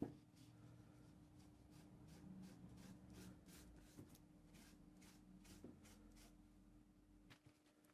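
Faint, irregular scraping strokes, about two a second, over a steady low hum.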